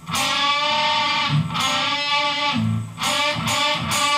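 Electric guitar playing double-stop notes on the third and second strings, the ring finger bending one note while the index finger holds the other. Two held notes come first, then several quicker, shorter notes near the end.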